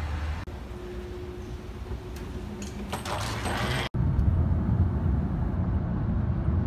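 Steady airliner cabin hum heard in the aircraft lavatory, with a hissing swell just before a cut. Then louder low road and engine rumble inside a car moving at highway speed.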